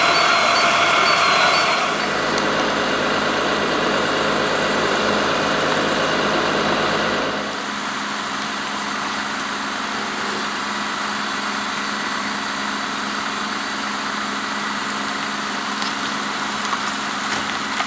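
Fire trucks' engines idling, a continuous steady mechanical hum. About seven seconds in it drops to a quieter, lower drone.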